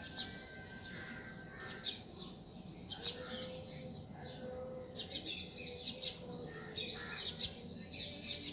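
Outdoor ambience of small birds chirping, with a faint steady hum joining about three seconds in.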